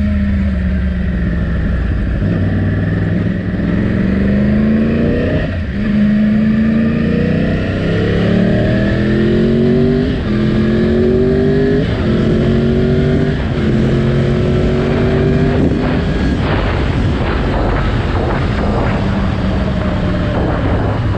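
Yamaha R1's inline-four engine accelerating through the gears. Its pitch climbs, then drops sharply at each of several upshifts.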